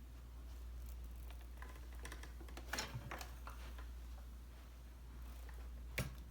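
A few scattered light clicks and taps, a small cluster about three seconds in and another near the end, over a faint steady low hum.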